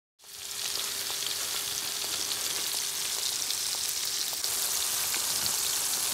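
Coated fish fillets deep-frying in a pan of hot oil: a steady sizzle with small crackling pops, and a faint steady hum underneath.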